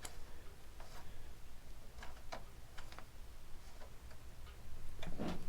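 Light, irregular metal clicks from a hand tool tightening handlebar riser bolts, a few a second at times, with a louder run of clicks near the end.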